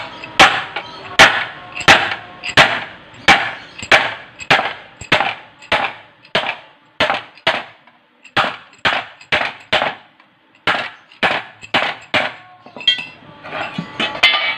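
Hammer blows on a galvanized iron sheet laid over a wooden board, folding its edge down: a steady run of sharp metallic strikes, about one and a half a second, with a brief pause midway. The blows stop a couple of seconds before the end.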